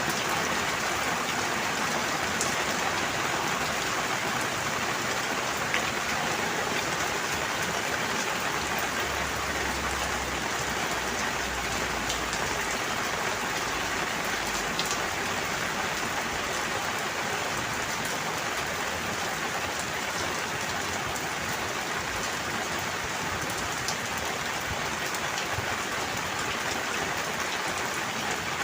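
Steady rain falling, an even hiss with scattered individual drop taps.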